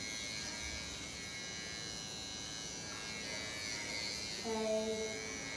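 Cordless electric hair trimmer running with a steady high-pitched buzz as it shaves the fur around a baby monkey's ear and face. A short voiced hum comes about four and a half seconds in.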